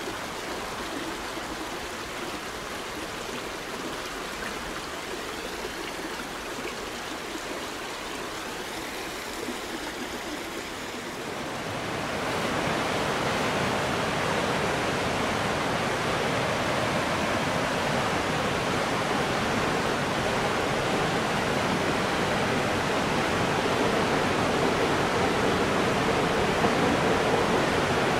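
Steady rush of flowing water, quieter at first, then louder from about halfway through as a rocky river below a railway bridge takes over.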